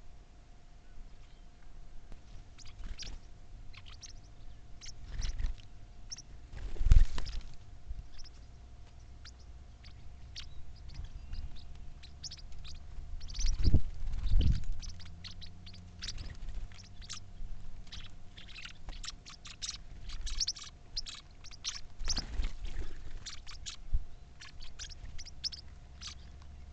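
Birds chirping in short, scattered calls, with a few loud low thumps about seven and fourteen seconds in and a faint steady hum underneath.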